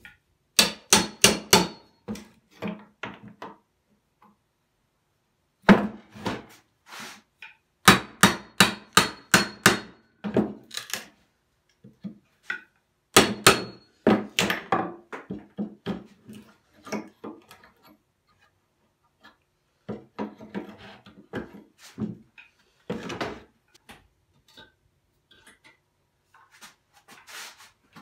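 Hammer driving a cat's paw nail puller into an old wooden beam to pull nails: three runs of quick, loud metal-on-metal blows, the first blows of each run ringing briefly. Later come quieter knocks and scraping as the nails are levered out and the board is shifted.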